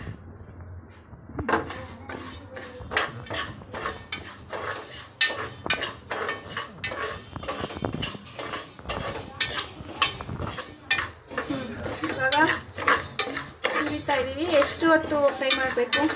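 Spoon stirring and scraping moong dal (split yellow lentils) roasting in a pressure cooker pot: a quick, uneven run of scrapes and clinks against the metal, starting about a second and a half in.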